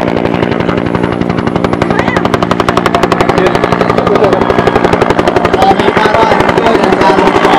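A Bell UH-1 'Huey'-type helicopter flies low past. Its two-bladed main rotor beats in a rapid, even thudding over a steady engine hum, growing louder as it comes closer.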